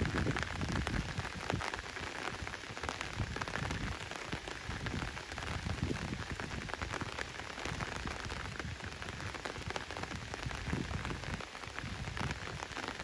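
Steady rainfall: an even hiss of rain with many small drop ticks, and a low rumble that swells and fades now and then.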